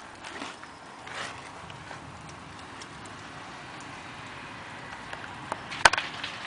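A unicycle being ridden over paving stones: faint rolling noise with a few soft, irregular knocks, and a sharp cluster of clicks near the end.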